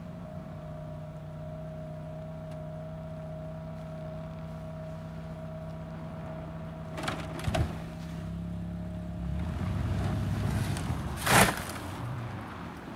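Car engines idling steadily while a stuck hatchback is towed out of a snowbank by a pickup. There are a couple of short knocks about seven seconds in. From about nine seconds in, a louder rush of engine and tyre noise rises as the car comes free, with one sharp loud burst near the end.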